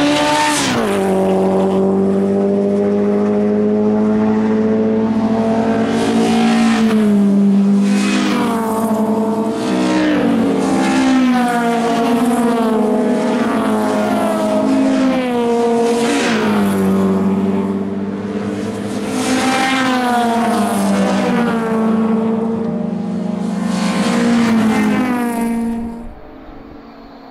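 Race car engines running at full throttle as cars pass close by: the first one's note drops sharply as it goes past about half a second in, then the engines climb in pitch and fall back again and again as they shift up through the gears. The sound falls away abruptly near the end.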